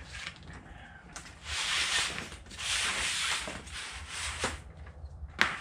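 Gloved hands rubbing a cloth shop rag, two stretches of scuffing, then a single sharp click of a small part near the end.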